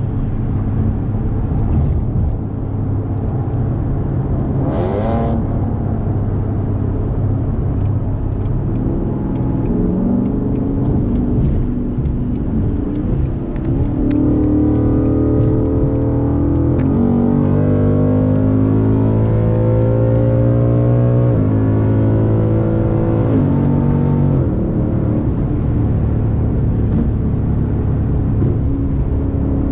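Car engine running under way in traffic, heard from inside the cabin. About halfway through it accelerates hard, the revs climbing and dropping back in steps at gear changes.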